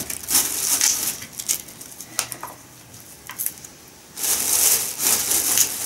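Rustling and crackling handling noises from hands working at something in the lap, with a few sharp clicks in the middle and a louder stretch of rustling about four seconds in.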